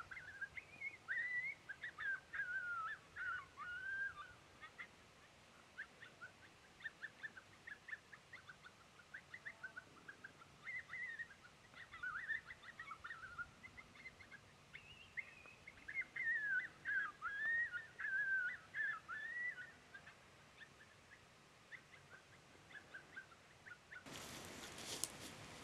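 Coyotes howling and yipping: a run of short, wavering high calls that rise and fall in pitch, in several rounds over about twenty seconds, dying out some seconds before the end.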